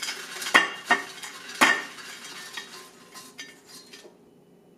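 Air-fried french fries tumbling out of the fryer basket onto a plate, with sharp clatters of the basket and fries against the plate about half a second, one second and one and a half seconds in, then lighter rattling that stops near the end.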